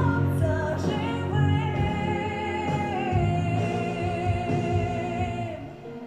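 A woman's voice singing a slow ballad over accompaniment. About a second and a half in she holds one long note with vibrato, which ends near the end as the music grows quieter.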